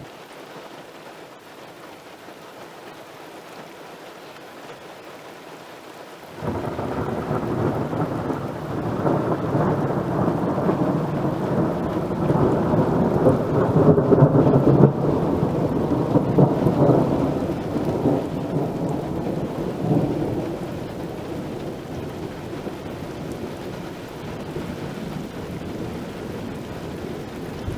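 Steady rain, then a long peal of thunder that breaks in suddenly about six seconds in, rumbles loudest in the middle and slowly dies away.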